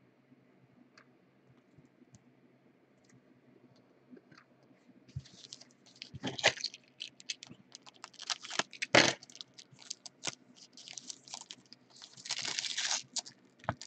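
Foil trading-card packs crinkling and rustling as they are handled, with sharp clicks mixed in. It starts about five seconds in after a few quiet seconds with faint ticks, and comes in uneven spurts.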